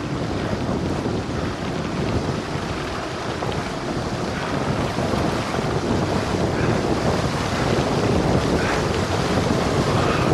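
Wind buffeting the microphone of a Samsung Gear 360 camera on a bicycle descending at speed, a dense steady rush that grows a little louder toward the end.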